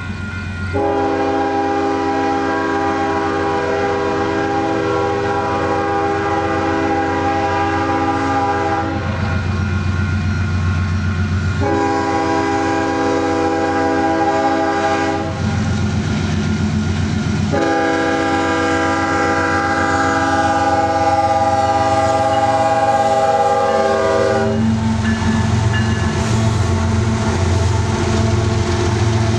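Union Pacific diesel freight locomotive blowing its horn for a grade crossing in three long chord blasts, the last one held longest, over a steady low engine rumble. Near the end the horn stops and the locomotives pass close by, their engines rumbling and the train rolling on the rails.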